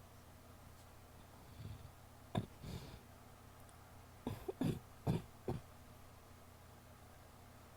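A woman's wet coughs: one cough about two and a half seconds in, then a quick run of four or five coughs around the middle.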